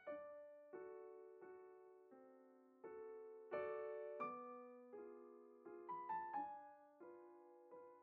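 Quiet, slow piano music: notes and chords struck about every 0.7 seconds, each ringing and fading, with a quick run of notes about six seconds in.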